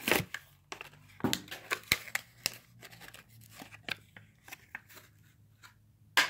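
A Hot Wheels blister pack being torn open by hand: cardboard tearing and the plastic blister crinkling and cracking in a run of irregular small snaps, with one sharp, loud crack near the end.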